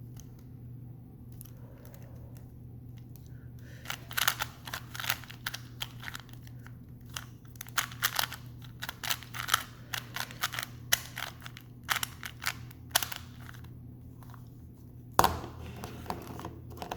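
Plastic Rubik's Cube being turned fast: a quick run of clicking, clacking layer turns, then a single louder knock about fifteen seconds in as the solve ends. A low steady hum runs underneath.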